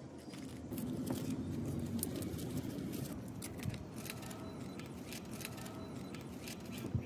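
A small motor running steadily, with light clicking and rattling throughout.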